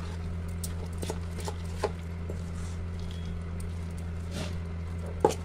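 Coarse chana dal paste being mixed and beaten by hand in a steel bowl: soft, irregular squishing and light taps of the hand and paste against the bowl, with a sharper tap near the end, over a steady low hum.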